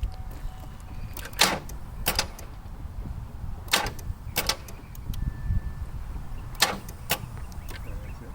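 A 2010 Chevrolet Impala failing to start: three turns of the key, each giving a hard clunk and a second one about half a second later, with no cranking of the engine.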